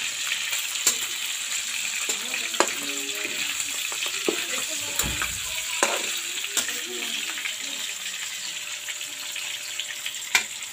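Pieces of meat sizzling as they fry in a wok, with a steady hiss. A metal spatula stirring them clinks and scrapes against the pan every second or so, and the loudest clink comes near the end.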